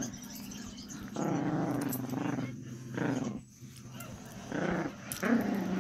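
A small white puppy growling over the toy it is chewing, as a warning to whoever is bothering it. There are several low growls; the first runs about two seconds, and two shorter ones come near the end.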